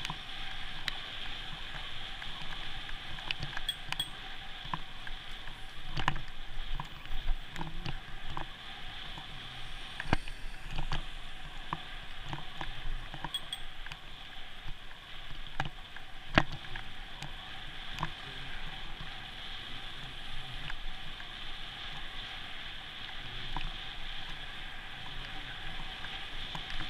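Steady road and wind noise from a bicycle riding through traffic, broken by frequent small clicks and knocks from bumps in the road, with a sharper knock about sixteen seconds in.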